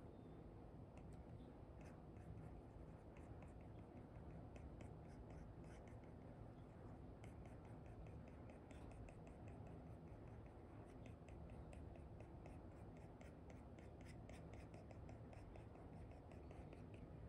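Faint scratching and tapping of an Apple Pencil stylus with an Elecom nib on a paper-like screen film over an iPad, in many quick short strokes.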